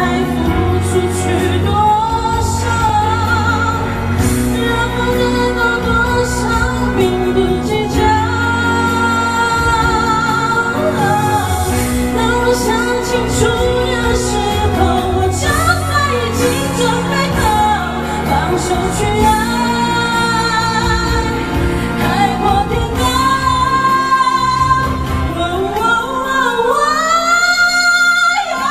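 A woman singing a Mandarin pop song into a handheld microphone over a karaoke backing track, amplified through the hall's PA. Near the end she sweeps up into a long held note.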